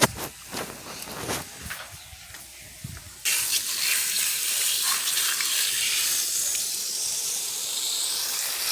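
A few faint clicks and knocks, then a steady hiss starts suddenly about three seconds in.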